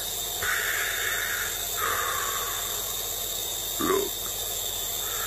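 Darth Vader-style breathing through a plastic nebulizer mask. There are two long breaths of about a second each, then a short throaty sound about four seconds in.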